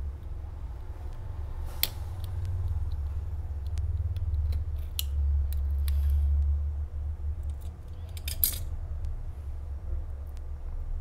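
A small metal tool clicking and scraping against a smartphone's metal midframe, in scattered short strokes with a louder cluster of clicks near the end, over a steady low hum.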